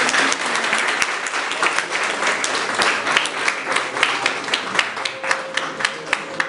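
Small audience applauding with hand claps. The clapping thins toward the end into a few separate claps.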